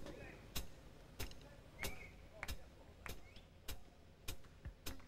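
A steady series of sharp clicks or knocks, about one every 0.6 seconds, nine in all, over a low hum, with faint short chirps between some of them.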